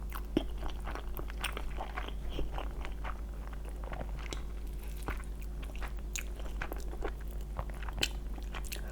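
Close-miked mouth sounds of a person chewing and biting food, with many short irregular clicks over a steady low hum.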